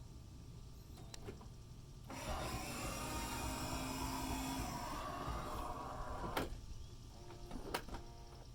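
A few light clicks, then the power sliding door of a 2011 Toyota Sienna runs on its motor with a loud grinding for about four seconds, ending in a sharp knock. The owner suspects the door motor itself, since the door is silent when slid by hand.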